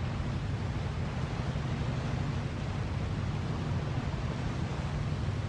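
Steady outdoor wind and sea noise on a ship's side, with a constant low rumble underneath.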